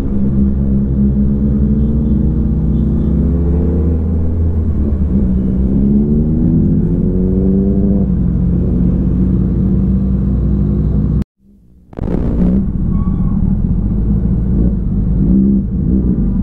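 Motorcycle engine running on the move over a steady low drone. The engine note climbs in pitch twice as the bike accelerates. The sound cuts out abruptly for about half a second, about eleven seconds in, then comes back.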